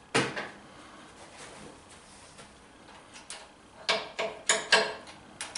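Metal tools clanking against a generator engine as a 12 mm wrench is worked on a threaded oil drain fitting. There is one sharp clank just after the start, then a run of quick metallic clicks about four seconds in, and a couple more near the end.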